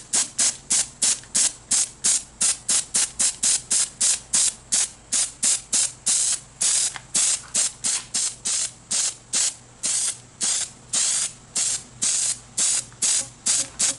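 Aerosol can of Rust-Oleum enamel spray paint, sprayed in quick short bursts, about four a second, as a window frame is painted.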